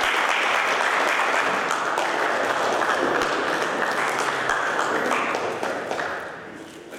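A small audience applauding: many hands clapping steadily, dying away about six seconds in.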